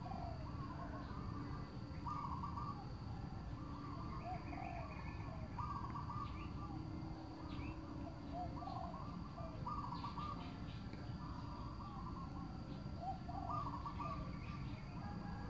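A bird calling over and over, a short phrase of two or three notes every second or two, over a steady low rumble and a faint high whine.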